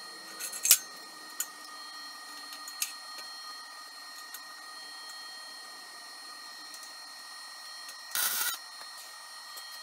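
A few sharp metal clicks and knocks as a steel leg is handled on a steel welding table, then a single half-second burst of noise from a short weld tack about eight seconds in, over a faint steady background hum.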